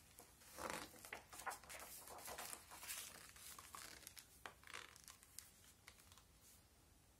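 Faint rustling of paper as the pages of a large picture book are turned and handled, loudest in the first three seconds, followed by a few soft ticks and taps.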